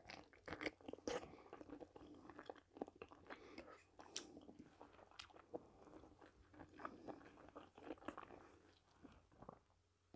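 Faint, close-miked chewing and biting of soft zucchini fritters, with small wet mouth clicks and smacks scattered throughout.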